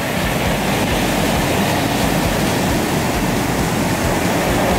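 Ocean surf washing over and around shoreline rocks: a steady, loud rush of breaking whitewater.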